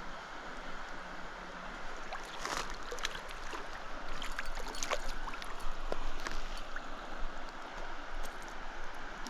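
Shallow trout stream running steadily, with scattered short, sharp splashes and ticks from about two to seven seconds in.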